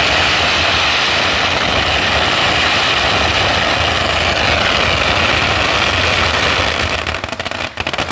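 Strings of firecrackers going off in a dense, continuous crackle. About seven seconds in the crackle thins into separate sharp bangs.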